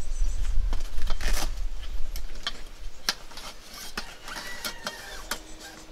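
Scattered clicks and knocks of a metal equipment rod being handled and slid into a soft nylon carry bag, with rustling of the bag. The handling is busiest in the first three seconds and thins out after that.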